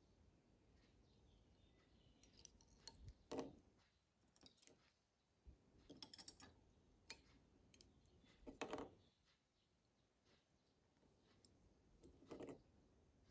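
Faint handling noise of fly tying at the vise: small clicks and rustles of the thread bobbin, fingers and fly materials, in a few short clusters, the loudest about three and a half and nine seconds in.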